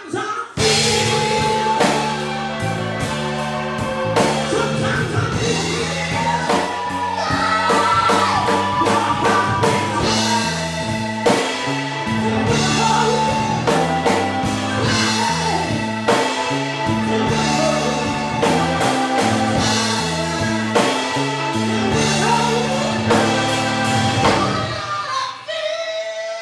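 Live blues-rock band playing: a woman's lead vocal over electric guitar, bass, keyboard and a drum kit with regular drum hits. Near the end the band stops and a single held note rings on alone.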